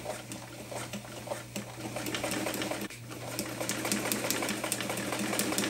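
Singer electric sewing machine stitching the layers of a fabric bag: a steady motor hum with a rapid, even ticking of the needle. It picks up speed about two seconds in, with a brief pause near the middle.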